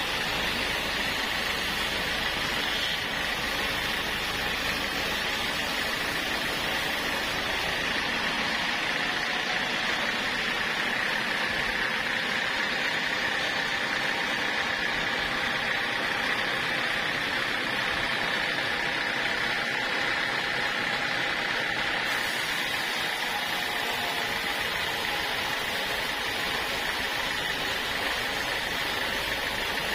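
Sawmill saw and its drive running steadily without a break, a rushing noise with a continuous high whine that grows stronger through the middle and eases off again.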